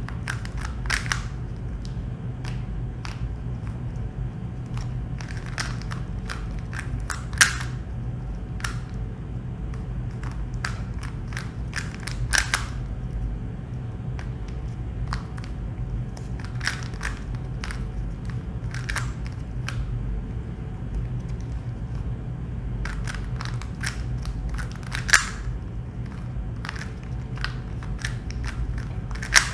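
A plastic Rubik's cube being turned by hand, its layers clicking and clacking in quick irregular runs, with a few sharper clacks, over a steady low hum.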